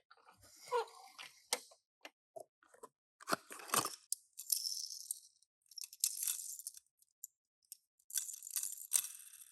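Packaging being handled and opened: plastic crinkling in irregular bursts, with small sharp clicks and taps in between.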